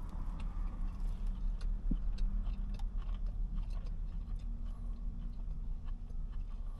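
A person chewing a mouthful of sandwich, with soft scattered mouth clicks and smacks over a low steady hum.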